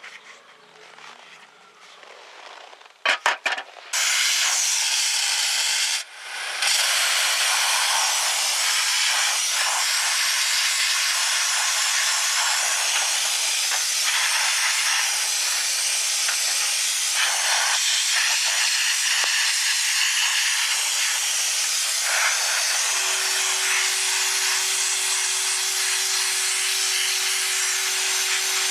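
Sandblasting gun hissing steadily as it blasts a small metal part, after a few short sharp bursts; the blast stops briefly about six seconds in. A low steady hum joins near the end.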